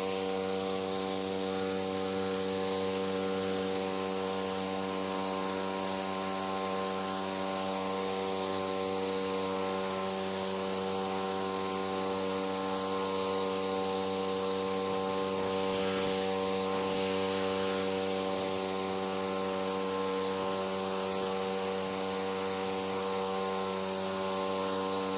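Simpson PS60843 gas pressure washer running steadily under load, its CRX 420cc engine and AAA pump giving an even hum, with the hiss of the water spray on top.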